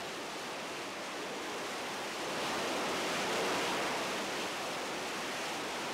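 Harrier jump jet engine noise: a steady rushing roar that swells about halfway through and then eases back.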